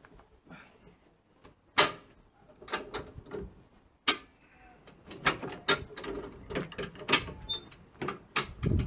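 High-lift jack being let down by pumping its handle, its latch and climbing pins clacking as it drops notch by notch. The clacks are sharp and separate, a few at first and then coming quicker in the second half.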